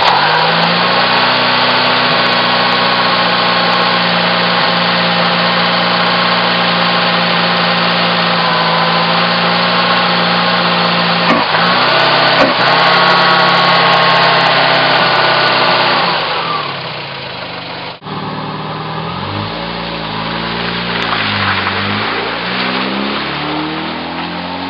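Volkswagen Iltis 1.7-litre petrol engine running steadily just after starting on a newly fitted ignition conversion kit (new spark plugs, leads and distributor cap). Its pitch dips and recovers twice about halfway through. Near the end the engine is heard under way, its pitch rising and falling.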